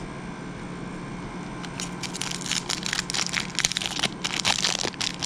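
A foil wrapper of a Topps football card pack being torn open and crinkled by hand, a quick run of crackles starting about two seconds in.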